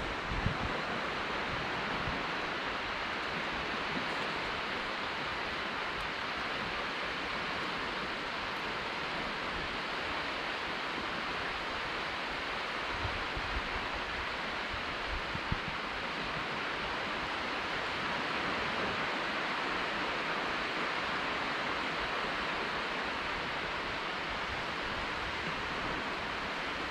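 Steady hiss of calm surf washing onto a flat sandy beach at the tide's edge. A few brief low thumps break in, near the start and about halfway through.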